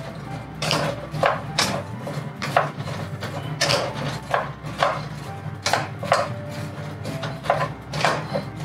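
Kitchen utensil knocking and scraping during cooking, irregular sharp strokes about one or two a second, some with a short ring, over a steady low hum.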